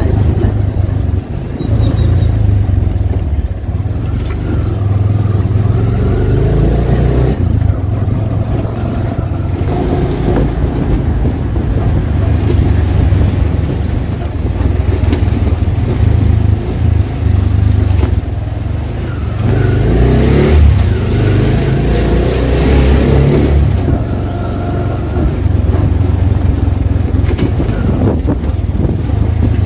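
Mototaxi's small engine running as it drives along, heard from on board, with a heavy low rumble and the engine note rising and falling as it speeds up and slows.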